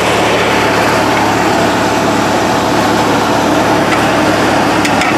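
A vehicle engine idling steadily, a constant low hum under an even rushing noise.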